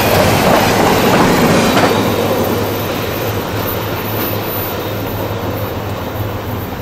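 Intermodal freight train carrying truck trailers rolling past on the rails, a dense steady rumble that slowly fades as the train moves away.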